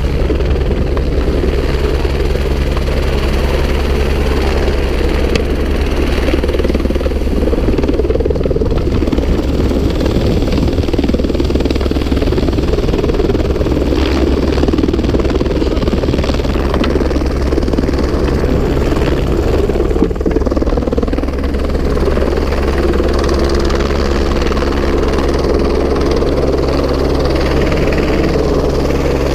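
Helicopter (AS350 single-turbine) running steadily overhead: a continuous rotor and turbine drone with a steady low hum, unbroken throughout.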